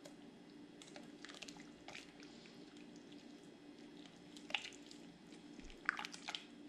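Tongs stirring and pulling apart cooked meat in the juices of a crock pot: faint wet squelches and light clicks, the sharpest about four and a half and six seconds in, over a low steady hum.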